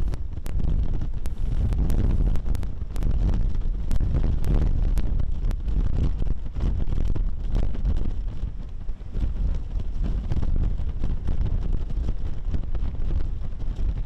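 Strong typhoon wind buffeting the microphone in gusts, a heavy low rumble over the wash of rough surf breaking against a harbour breakwater, with scattered sharp ticks.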